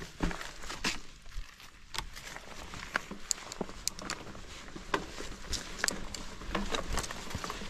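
A mountain bike on a leaf-strewn dirt trail: irregular clicks, knocks and crunches from the bike rattling and its tyres on twigs and leaves, over a steady rustle.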